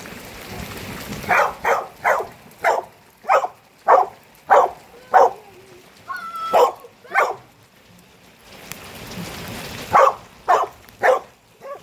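A dog barking repeatedly in short barks, about two a second, in two bursts with a pause of a few seconds between them, over rain falling.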